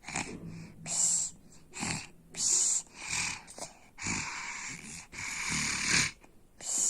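A person snoring in a run of short, irregular breaths, the snores from about four seconds in longer and drawn out.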